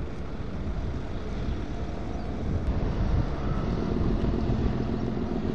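Police patrol boat's engine running steadily as it cruises past, a low hum that grows a little louder about three seconds in.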